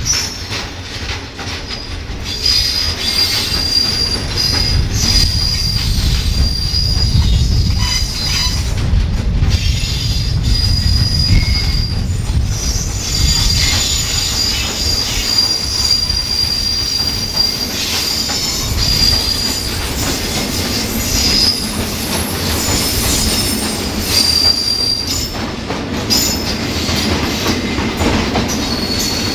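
Cement freight wagons rolling slowly as a diesel shunting locomotive pushes them, with a low rumble and a high, thin wheel squeal that comes and goes.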